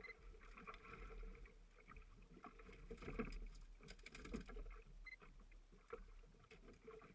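Faint water sloshing and lapping against a small boat's hull at sea, with scattered light knocks and clicks around the middle.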